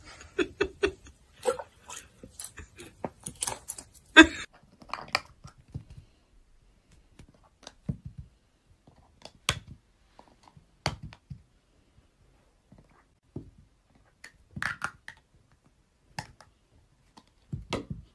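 Light plastic stacking cups being nudged and knocked about by a rabbit: sparse single clicks and knocks a second or more apart. Before that comes a denser run of clatter and knocks, the loudest about four seconds in.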